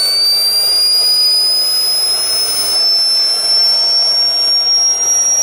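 Mini jet turbine engine on a Traxxas X-Maxx RC truck running with a loud high-pitched whine over a rushing exhaust, the whine rising slowly in pitch as it spools.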